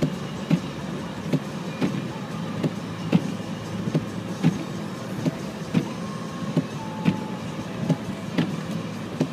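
Inside a car driving slowly on a snowy road: a steady low rumble, with sharp regular thumps that come in pairs about every 1.3 seconds.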